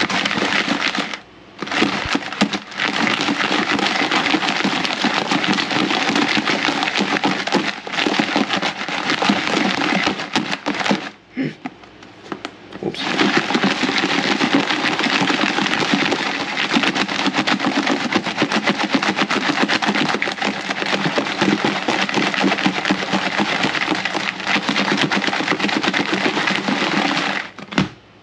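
A'ama crabs rattling and clattering against each other and the sides of a closed container as it is shaken hard to toss them in poke sauce: a dense, rapid crackle of clicks. It breaks off briefly about a second in and again for a couple of seconds around the middle.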